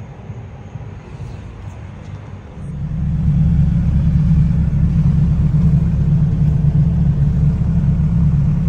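Turbocharged Honda Civic engine running steadily, heard from inside the cabin. A quieter rumble for the first two and a half seconds, then a sudden step up to a much louder, steady low drone with no revving.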